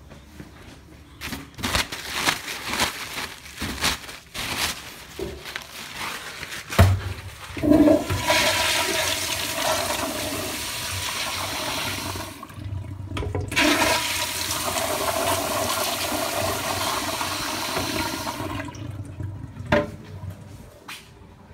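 Commercial flushometer-valve toilet, a 1970s–80s Kohler bowl, flushing a load of toilet paper and paper towel. Scattered knocks and a sharp clunk about seven seconds in lead to a loud rushing flush of about ten seconds, which dips briefly partway through and then tapers off.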